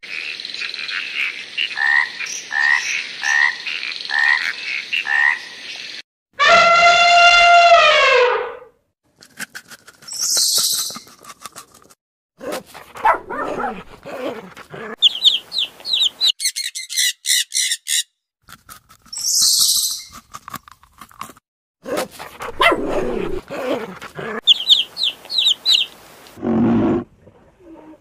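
A succession of different animal calls, changing abruptly from one to the next: a run of short repeated calls at first, then a loud long call that falls in pitch, then a mix of rapid high chirps and other cries.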